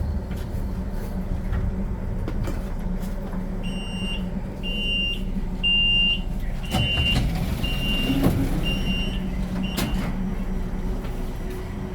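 Steady low running hum of a tram riding between stops, with a run of seven short high electronic beeps, about one a second, in the middle.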